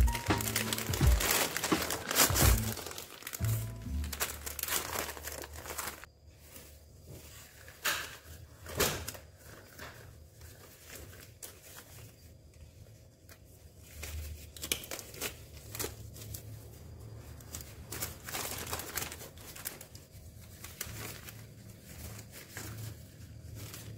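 Paper wrapper of a pair of latex surgical gloves crinkling and rustling in quick irregular bursts as it is unfolded and a glove is pulled on, over background music that is louder in the first few seconds.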